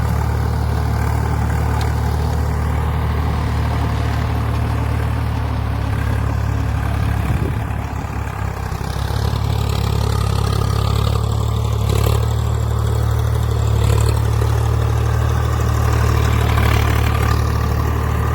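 Swaraj 855 FE tractor's three-cylinder diesel engine running steadily, pulling a plough, with a brief slight drop in level about midway before it settles back.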